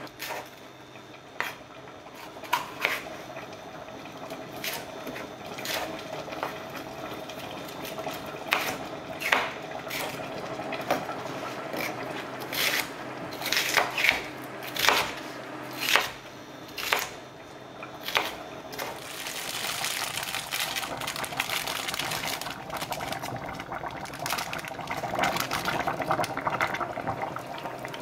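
Kitchen work: a scatter of sharp clinks and knocks of utensils against dishes and pans, joined about two-thirds of the way in by a steady hiss of liquid.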